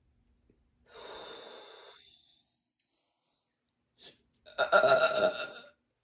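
A woman breathing out softly, then a few seconds later a loud voiced gasp lasting about a second.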